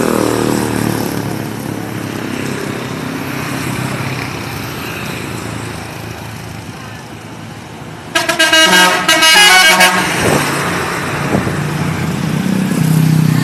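A Rukun Sayur bus's 'telolet' multi-tone musical horn plays a quick tune of changing notes for about two seconds, starting about eight seconds in. It sounds over the steady running of road traffic and a bus engine.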